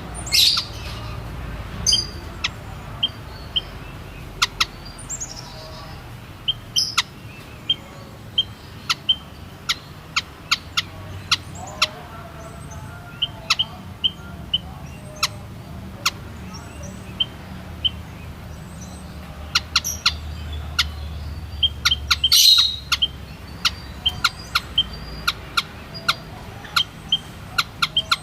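White-headed munia (Lonchura maja) calling: many short, sharp chirps at irregular intervals, some in quick runs, with a louder burst about three-quarters of the way in.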